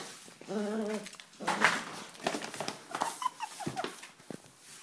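Pembroke Welsh corgi whining in play, a short pitched whine followed by a few higher wavering whimpers, mixed with quick scuffles and knocks of the chase on a tile floor.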